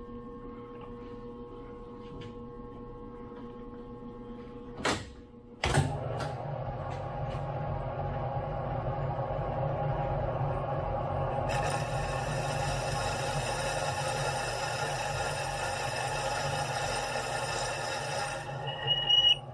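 Hardinge HC chucker lathe: two clunks about five seconds in as the spindle starts, then the spindle running steadily. From about twelve seconds in, a high steady whine joins it while the turret tool cuts the brass part. The whine ends a little before the close, followed by a brief louder clatter.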